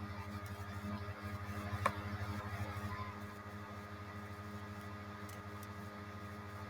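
Steady low electrical hum with a fast pulsing flutter, and one sharp click about two seconds in.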